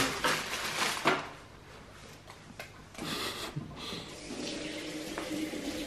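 A few light knocks and clicks of kitchen things being handled, then a short hiss about three seconds in, followed by a faint steady hum.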